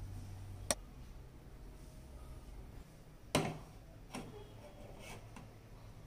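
A few sharp clicks and knocks. The first is a sharp click about two-thirds of a second in, as a low hum stops; a louder knock follows about three and a half seconds in, then two fainter ones.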